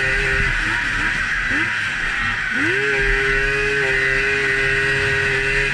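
Polaris XCR 800 snowmobile's three-cylinder two-stroke engine running at high revs under throttle. It eases off about half a second in, blips once, then climbs back to a steady high pitch about two and a half seconds in, over a steady hiss.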